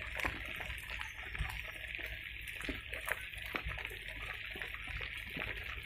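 Steady watery hiss with a low rumble underneath and a few faint ticks.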